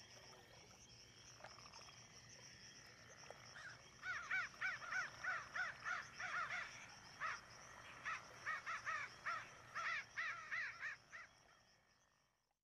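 Animal calls: a rapid run of short calls, each rising and falling in pitch, starting about four seconds in and stopping about eleven seconds in, over a faint steady high hum. The sound fades away just before the end.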